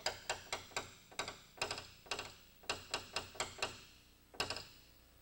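Small hammer dropped lightly onto a tapper (a nail set) held on a car body panel: quick runs of light metallic taps, several a second, each with a short ring, then a pause and one more tap near the end. The taps are gently knocking down high spots around a dent that has been pushed up from behind.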